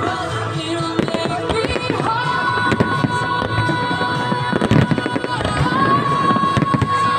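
Fireworks shells bursting and crackling over a music soundtrack that holds long sustained notes, with a cluster of louder bangs about halfway through.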